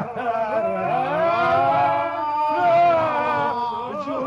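Men singing a slow, melancholy song together in long held notes, a Russian-style lament.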